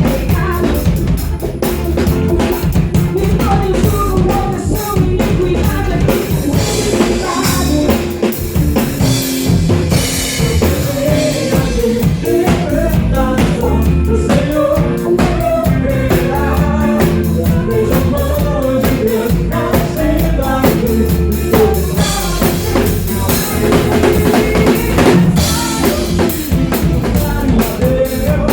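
A live band playing an instrumental passage, with a full drum kit (kick, snare, rimshots) driving a steady beat under bass and other instruments.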